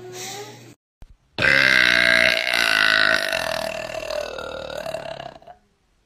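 A woman's long, loud deliberate burp, drawn out for about four seconds and fading toward the end.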